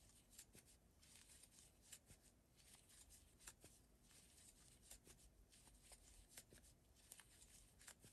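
Faint rustle of yarn and irregular light clicks of a crochet hook as single crochet stitches are worked.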